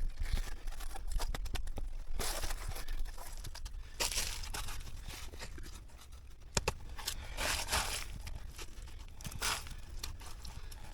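Irregular rustling and crunching with scattered sharp clicks, like things being handled or moved about.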